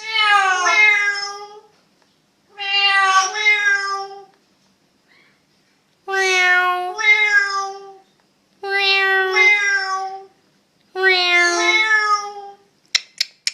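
Amazon parrot giving a meow-like two-note call, repeated five times about every two and a half seconds. A few sharp clicks come near the end.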